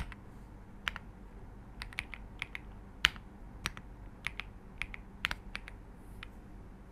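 Keystrokes on a Royal Kludge R75 gasket-mounted mechanical keyboard with linear Silver switches: separate key presses at an uneven pace, about every half second, dying away near the end. The keys sound more like a thock than a clack.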